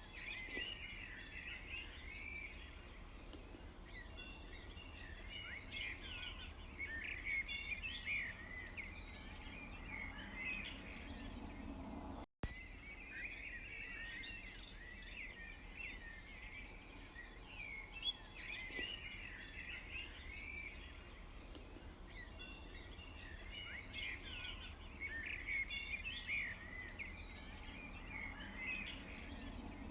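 A chorus of small birds chirping and twittering over one another, in busy overlapping runs, over a low steady background rumble. The sound cuts out for an instant about twelve seconds in, then the chorus resumes.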